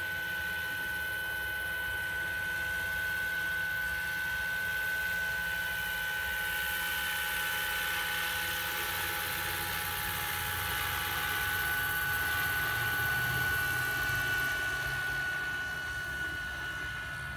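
Electric-powered large-scale Vario BO 105 model helicopter in flight: a steady high-pitched whine over rotor noise. It grows louder as the helicopter comes closest, about two-thirds of the way through, then eases off near the end.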